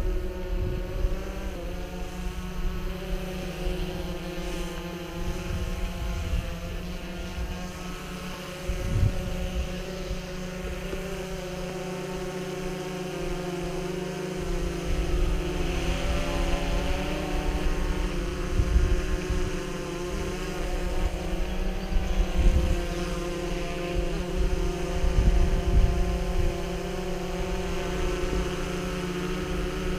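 DJI Phantom 3 quadcopter's propellers whirring in a steady hover-and-cruise hum, its pitch shifting slightly now and then as the motors change speed, with wind buffeting the microphone.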